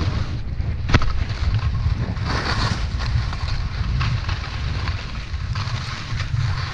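Wind buffeting the microphone of a camera carried by a skier moving fast downhill, a heavy steady rumble, with skis hissing and scraping over snow in surges as turns are made, and one sharp click about a second in.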